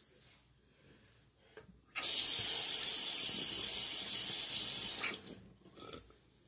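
Bathroom sink tap turned on, water running steadily into the basin for about three seconds, then shut off.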